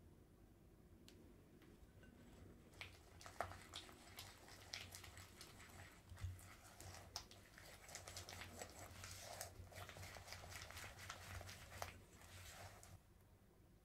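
A silicone spatula mixes egg white into creamed butter and sugar in a glass bowl for cookie dough, making irregular soft stirring and scraping strokes. The strokes start about three seconds in and stop about a second before the end.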